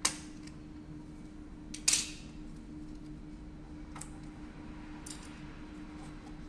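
Plastic snaps and clicks as the orange shipping cover is unclipped from a new HP CF360X toner cartridge: a sharp snap at the start, a louder one about two seconds in, then a couple of lighter ticks as the cartridge is handled, over a low steady hum.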